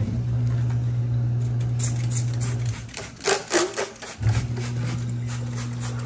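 Dishwasher motor humming steadily, pausing for about a second and a half midway before starting again. Several quick hissing squirts from a trigger spray bottle of stainless steel polish, mostly around the pause.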